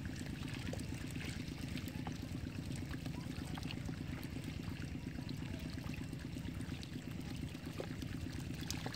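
Water running and pouring steadily through a gap in a mud embankment, with a few faint clicks over it.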